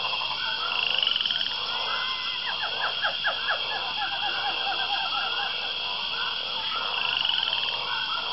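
A night chorus of frogs croaking, many short repeated calls overlapping, over a steady high drone of insects.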